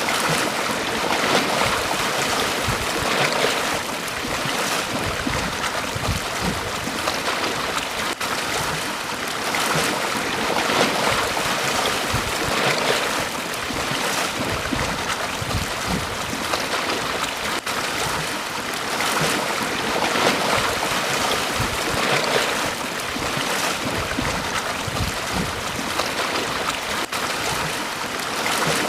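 Small sea waves washing onto a beach: a continuous rushing wash that swells and eases every few seconds.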